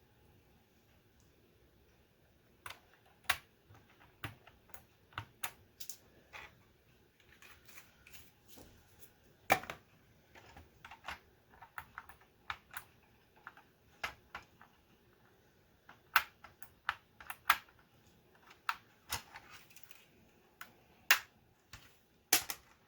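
Irregular sharp plastic clicks and taps from handling a Commodore 64 keyboard during reassembly. They begin about two and a half seconds in, the loudest comes near the middle, and they come quicker toward the end.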